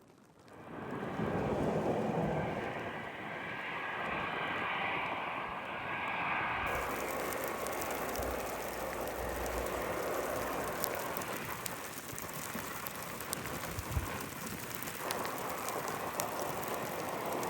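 Airliner jet engines running, a steady engine noise with a thin whine in the first few seconds. The sound changes abruptly about a third of the way through.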